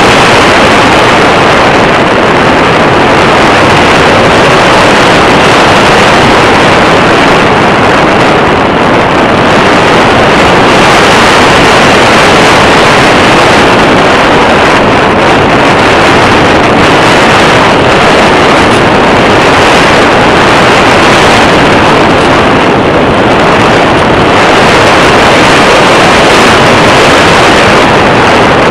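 Loud, steady rush of wind buffeting the microphone of a camera mounted on a flying RC glider.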